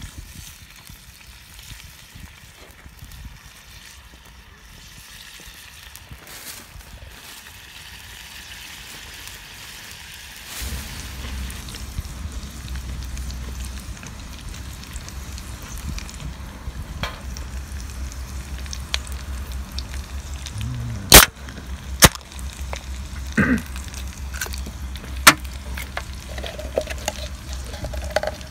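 Food sizzling as it fries in a small frying pan over a wood fire, stirred with chopsticks. About a third of the way in a steady low rumble joins the sizzle. Several sharp clicks come in the second half, the loudest of them twice about four seconds apart.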